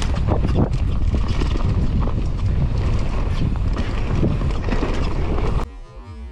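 Mountain bike descending a dirt forest trail: wind rushing over the microphone with tyre noise and a constant clatter of rattles and knocks from the bike over the rough ground. It cuts off suddenly near the end, giving way to quieter music.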